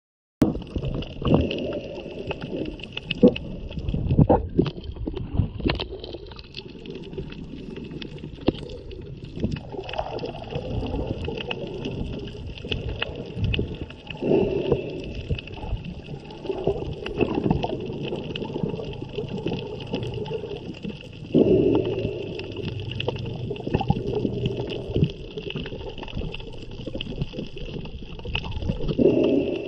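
Muffled underwater sound picked up by a snorkeller's camera: churning, gurgling water with irregular bumps and knocks, and a steady high-pitched hum underneath.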